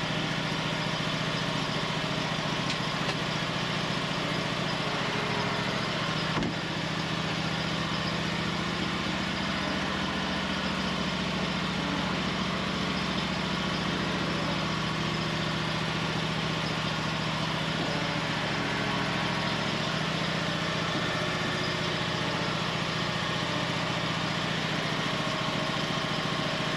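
John Deere Z-Trak zero-turn mower engine running at a steady speed while the mower is backed out of the wheel chock and driven back in. There is a single sharp click about six seconds in.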